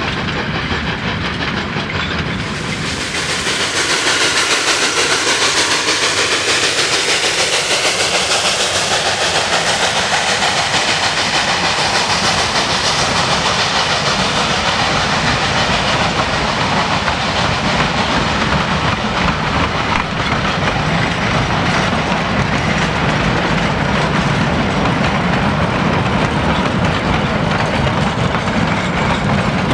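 Narrow-gauge steam locomotive No. 487, a K-36 2-8-2, working with its train: a loud hiss of steam comes in about three seconds in and eases off after about ten seconds, over a steady rumble and clatter of the train on the rails.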